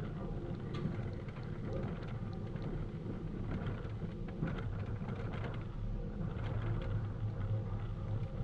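Steady low outdoor rumble with a few faint ticks scattered through it.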